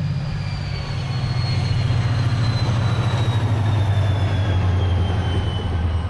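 SunRail diesel commuter train passing on a curve: a steady low engine drone and rolling rumble, with a thin high wheel squeal that slowly slides down in pitch.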